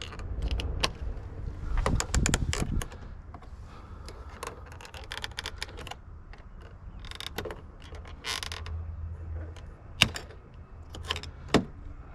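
Plastic door trim being worked loose by hand: a string of clicks, knocks and rustling handling, with a sharp snap about ten seconds in as the clip-held piece pops free without breaking.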